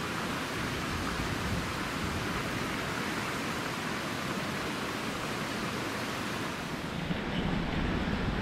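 Steady, even rushing noise, the sound of surf or running water and wind outdoors. About seven seconds in, the hiss thins and gusts of wind buffet the microphone with a low rumble.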